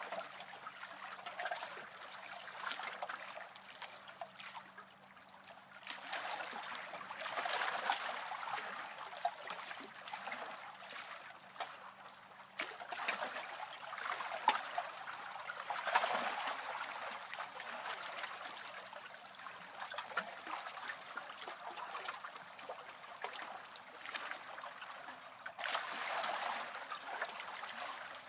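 Running water trickling and babbling steadily, swelling and easing every few seconds.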